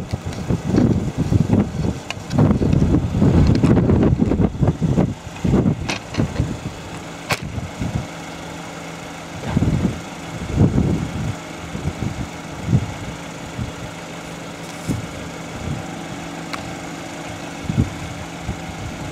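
Vehicle engine idling steadily, with heavy low rumbling over the first several seconds and a single sharp click about seven seconds in.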